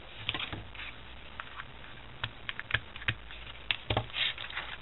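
Irregular light clicks and brief rustles of hands handling a small card booklet and its binding thread on a tabletop.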